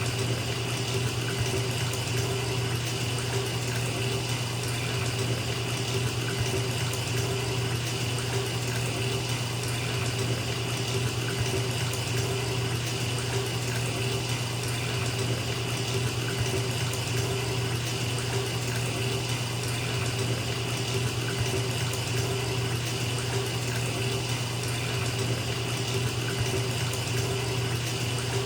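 Bathtub filling from a running tap: a steady, unbroken rush of water pouring into the tub.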